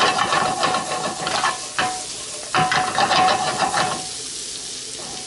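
Asparagus sizzling in melted butter in a pan on low heat, with a utensil clicking and scraping against the pan as it is stirred. The stirring stops about four seconds in, leaving a quieter, even sizzle.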